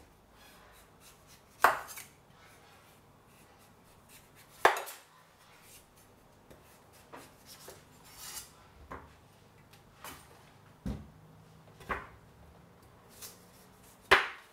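Kitchen knife and utensils knocking and clinking on a cutting board: two loud sharp knocks about three seconds apart, then a scattering of lighter taps and clinks.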